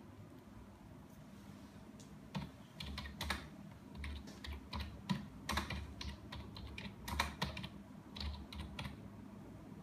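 Typing on a computer keyboard: a run of quick, irregular keystrokes that starts about two seconds in and stops shortly before the end.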